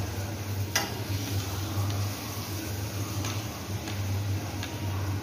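Knife cutting cooked idlis into small pieces, clicking against the plate or board underneath: a few sharp clicks spread out, the loudest about a second in, over a steady low hum.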